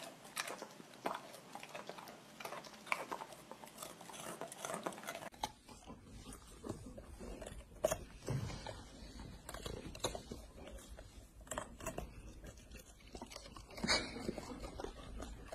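Golden retriever crunching a raw carrot: quick, irregular crunches. About five seconds in the sound changes to sparser chewing clicks over a low steady hum.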